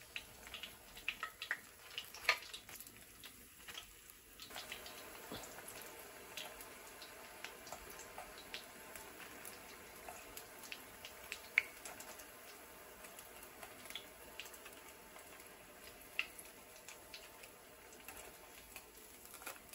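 Faint, scattered clicks and drips over a low steady hiss. They come most often in the first few seconds and thin out after that.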